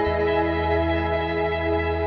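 Ambient guitar drone washed in shimmer reverb and delay: sustained, overlapping chord tones hold steady. The lowest note steps down at the very start.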